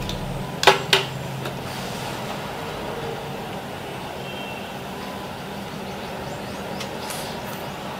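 Steady background noise with a low hum, broken by two sharp clicks about a second in.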